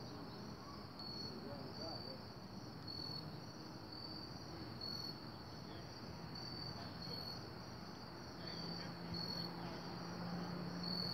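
Crickets chirping faintly in a steady, high, pulsing rhythm, a little over one chirp a second, with a low hum rising slightly in the last few seconds.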